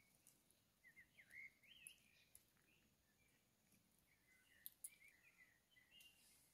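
Faint bird twittering in two spells of short, quick warbling phrases, with a few small clicks.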